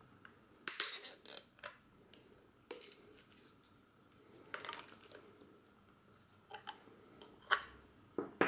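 Small clicks, scrapes and rattles of hands working a Bauer C 1 Super 8 camera's pistol grip as its battery compartment cap is turned and pulled off. The sharpest clicks come in a cluster about a second in, again around five and seven and a half seconds, and once more near the end.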